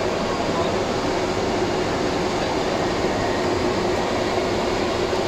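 Steady cockpit noise of a Be-200 amphibious aircraft: its D-436TP turbofan engines and rushing air blend into an even roar with a steady hum underneath.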